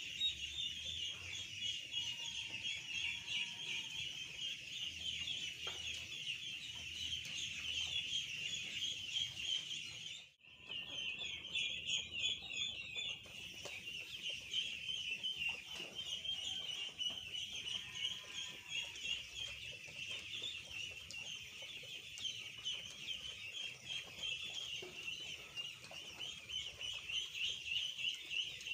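A large flock of two-week-old ducklings peeping continuously, a dense chorus of many overlapping high-pitched peeps. It drops out for a moment about ten seconds in.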